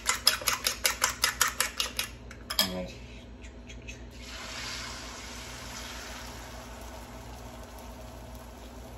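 A fork whisking beaten eggs in a ceramic bowl makes a quick, regular clinking of about five strokes a second, which stops about two seconds in. A single knock follows. From about four seconds in there is a steady, quieter sizzle as the eggs hit a hot non-stick frying pan.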